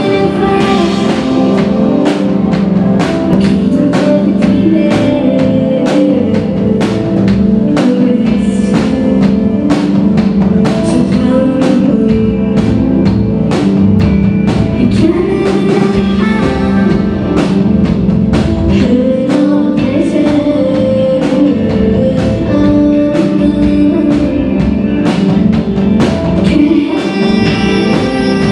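Live indie pop band playing a song, heard from the crowd: a steady drum beat under pitched instruments, with a woman singing into a microphone.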